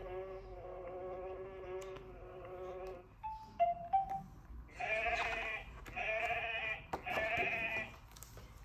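Recorded animal sounds played through a children's sound book's small speaker: a bee buzzing steadily for about three seconds, then a short three-note electronic chime, then a sheep bleating three times.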